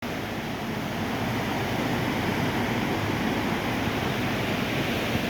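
Steady rushing of a river in flood, a constant noise of fast-flowing water.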